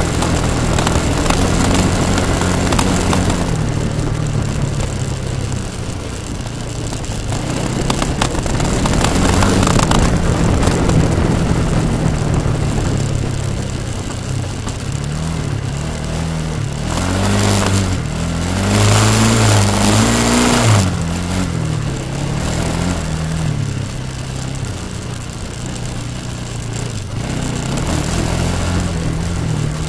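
Yamaha Bruin ATV's single-cylinder four-stroke engine running under way, its pitch rising and falling over and over as the throttle is worked, with the quickest, hardest revving a little past the middle. A broad rushing noise swells during that hard revving.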